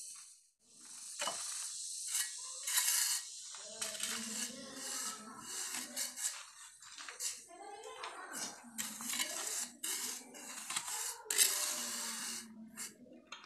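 Hand trowel scraping and tapping along a moulding form bedded with sand, giving repeated gritty scrapes and metallic clinks as the sand face is levelled.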